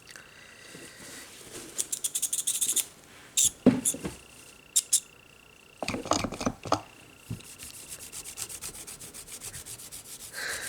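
Nail-art stamping tools being handled: quick scraping and rubbing strokes on a hard surface, then several sharp clicks and a run of light ticking.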